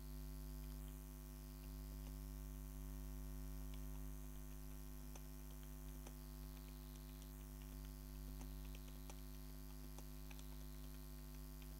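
Steady low electrical hum, with faint, irregular computer mouse clicks, roughly a couple a second, as letters are picked one by one on an on-screen keyboard.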